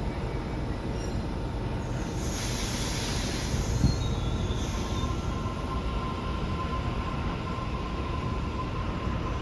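Electric passenger train moving at the station platform, with a steady low rumble. A hiss about two seconds in lasts a few seconds, and there is a single thump near four seconds. A thin, faint squeal comes in about halfway through.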